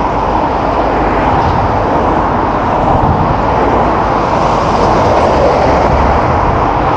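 Steady noise of cars and lorries passing close by on a busy dual carriageway, tyres and engines blending into one continuous sound.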